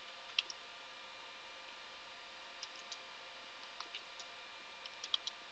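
Faint computer keyboard keystrokes: a dozen or so short clicks, single or in quick little runs, over a low steady hiss and faint hum.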